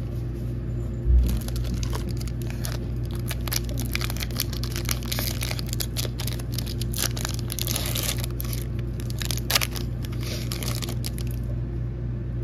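Foil Pokémon trading card booster pack being torn open and crinkled in the hands: a dense, crackly rustle lasting about ten seconds. There is a dull low thump about a second in, over a steady low hum.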